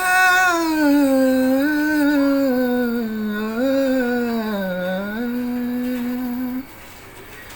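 A man singing unaccompanied in Hindi classical style, drawing out one long ornamented note whose pitch wavers and dips before it stops about six and a half seconds in.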